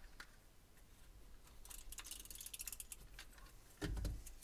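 Paper being handled on a craft table: faint rustling and light clicks, with a denser stretch of rustle in the middle and a soft thump on the table near the end.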